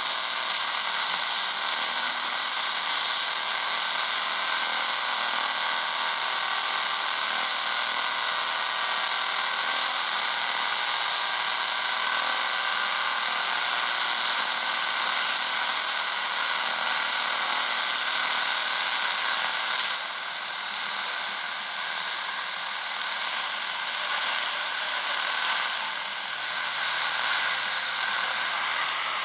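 Shortwave radio receiver being tuned across the 49-metre band, giving a steady hiss of static between stations with faint steady whistling tones in it. About two-thirds of the way through the hiss drops a little and changes character as the tuning moves.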